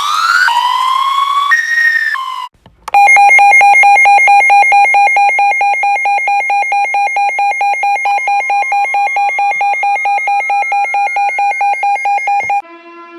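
Custom-made emergency alert alarm tones. A siren tone sweeps up and down, breaks off briefly, then gives way to loud rapid beeping on one pitch with a faint rising tone joining halfway through. Near the end the beeping cuts off and a quieter wavering siren tone starts.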